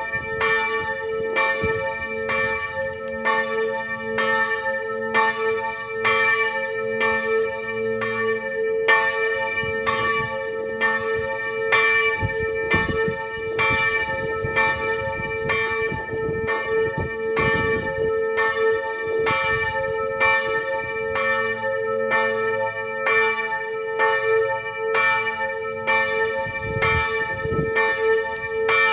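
Church bells ringing continuously: evenly spaced strokes about once a second over a steady humming tone that hangs between them.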